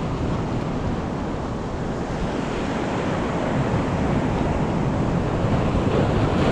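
Sea surf washing over a rocky shoreline, with wind on the microphone, getting a little louder toward the end.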